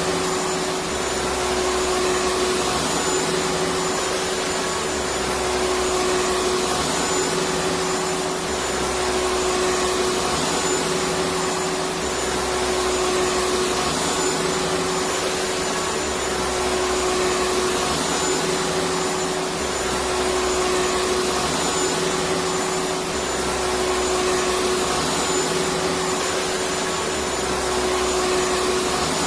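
Electric vacuum cleaner running steadily: a continuous rushing noise with a constant motor hum, no change in speed.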